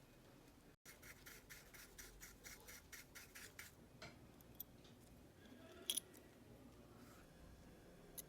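Faint, small, sharp clicks from handwork on a wristwatch: a run of about a dozen even clicks, about four a second, then a few single clicks, the sharpest about six seconds in.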